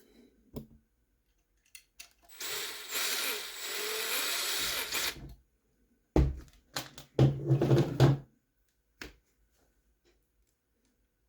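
Small electric screwdriver running in several short bursts, driving tiny screws into 3D-printed plastic parts. Before that, a steady noisy sound lasts about three seconds.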